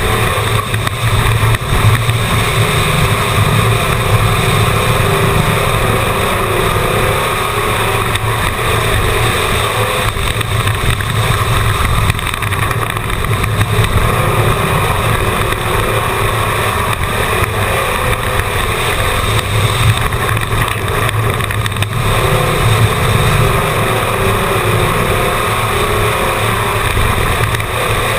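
Race car engine running steadily at speed around a paved oval, heard from inside the car, with a low, even drone and road and wind noise.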